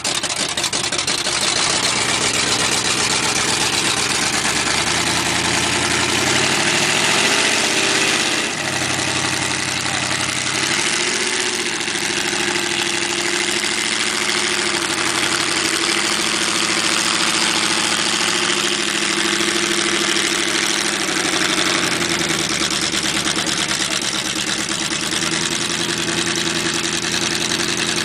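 Lifted mud truck's engine running loud, revving up and down several times with steadier stretches in between.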